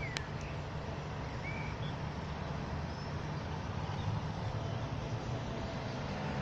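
Outdoor city ambience: a steady low rumble of distant traffic, with a few faint bird chirps and a short click near the start.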